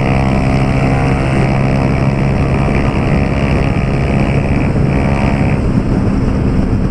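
Honda CG Titan 150's single-cylinder four-stroke engine running at a steady speed through a Pro Tork aftermarket exhaust while the motorcycle is ridden.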